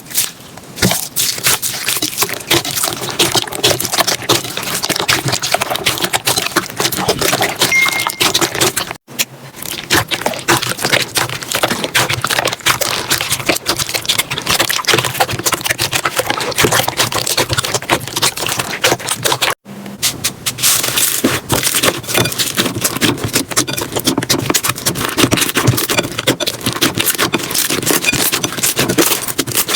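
Slime being squished and pressed by hand, making a dense run of small clicks, crackles and pops. Brief cuts about 9 and 20 seconds in split it into three takes.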